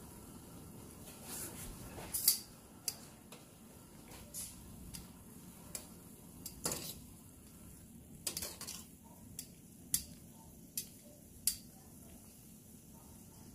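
Metal kitchen tongs clinking and knocking against the sides of an enamel pot while turning mushroom pieces in water, about a dozen irregular clicks, the loudest about two seconds in. A faint steady hum runs underneath.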